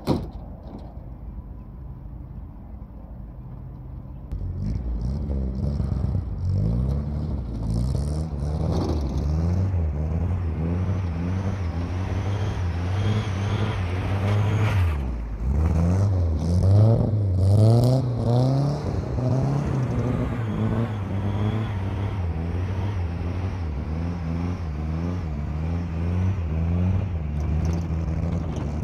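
A sharp knock at the start as the driver's door shuts. About four seconds in, the Nissan 1400 bakkie's 1.4-litre four-cylinder engine, breathing through its new exhaust, revs hard and keeps surging up and down in pitch as the pickup spins donuts on loose dirt, with a brief lift-off about halfway through.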